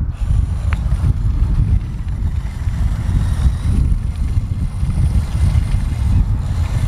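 Wind buffeting the microphone: a loud, uneven low rumble with a faint hiss above it.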